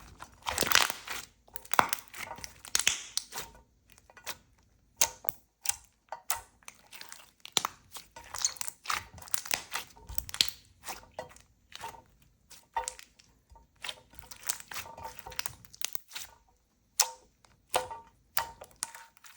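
A stiff, putty-like clear slime with boba-pearl mix-ins being stretched, torn and squeezed by hand, giving irregular crackles, snaps and tearing sounds in bursts with short pauses between.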